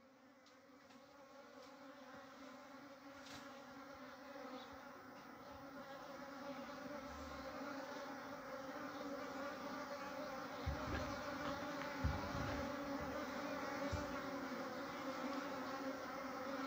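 A colony of honey bees buzzing in a steady, many-toned hum that fades in and grows louder over the first several seconds as the hive is opened. A few low thumps come in the second half.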